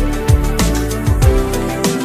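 Background electronic music with a steady kick-drum beat and held chords.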